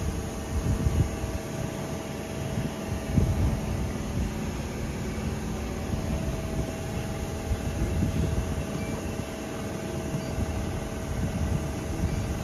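Ball shaper machine's spindle motor running, a steady hum with a faint steady whine over a low, uneven rumble.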